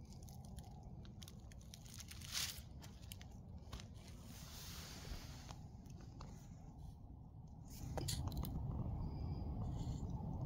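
Footsteps crunching and crackling through dry fallen leaves. About eight seconds in, a louder, steady low rumble sets in.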